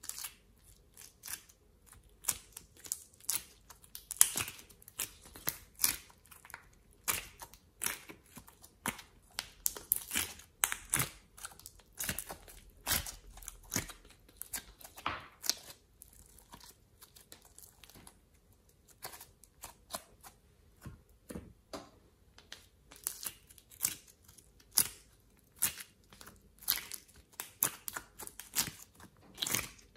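Coloured clay and slime cubes being pried and peeled out of a plastic ice cube tray and squeezed together, with many irregular sharp crackles and clicks that thin out for a while in the middle.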